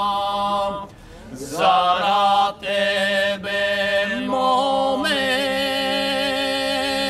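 Three men singing a Pirin (Bansko) folk song a cappella in the old two-part style: a steady held drone under a lead voice. The lead breaks off about a second in and slides up into the next phrase, and a little past the middle another voice joins just above the drone.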